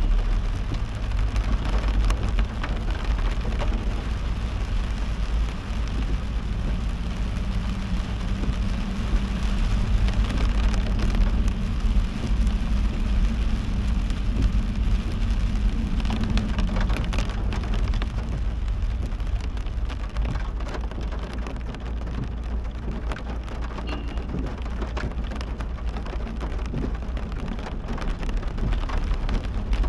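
Heavy rain falling on a moving car, a dense hiss of many separate drop hits over a steady low rumble from the car and the wet road.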